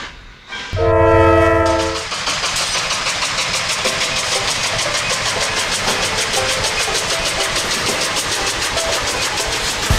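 A steam locomotive's chime whistle sounds once, briefly, about a second in. Then steam locomotive exhaust chuffs in rapid, even beats as the engines pull the train.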